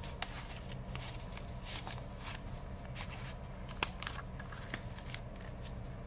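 Paper handled up close: letters and sheets rustling and scraping as they are tucked into a paper envelope and the flap is worked. There are irregular short crinkles and a sharp click about four seconds in.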